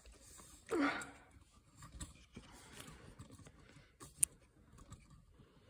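Handling noise from a phone being picked up and carried: faint rubbing and rustling. A short vocal sound with a falling pitch comes about a second in, and one sharp click a little past four seconds.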